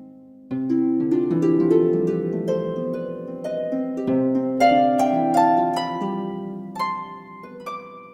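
Background music: a plucked-string tune with harp-like notes ringing over one another, starting about half a second in.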